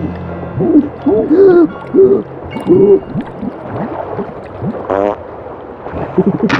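Cartoon sound track: a string of short hooting voice sounds, each rising and falling in pitch, with a brief rattle about five seconds in.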